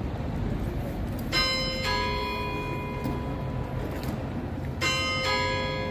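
Clock bells chiming: two bells of different pitch struck one after the other about half a second apart, the pair heard twice, each note ringing on, over a steady low rumble of outdoor background noise.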